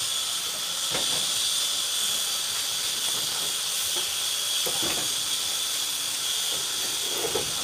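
Steady high-pitched hiss, with a few faint knocks scattered through it.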